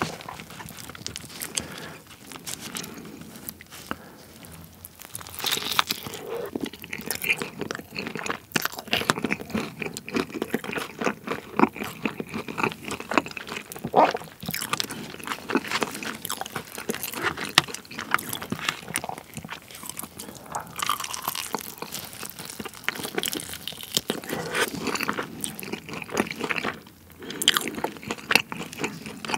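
Close-miked eating sounds of sauce-coated Korean yangnyeom fried chicken: repeated bites crunching through the fried coating, followed by chewing.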